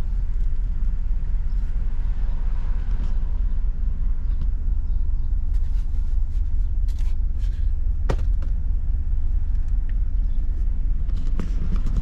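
Low, steady rumble of a car heard from inside the cabin, with a single sharp click about eight seconds in.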